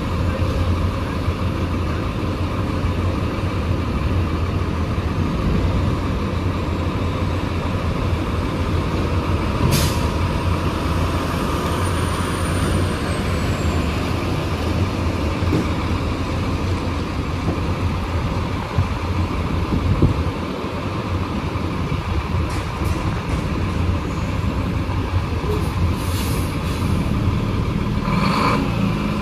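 Aerial ladder fire truck's diesel engine idling with a steady low rumble, broken by short hisses of air from its air brakes about ten seconds in and again near the end.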